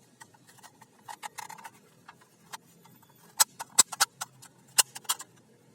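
Irregular sharp clicks and taps of hard plastic being handled, with a cluster of louder clacks from about three and a half to five seconds in.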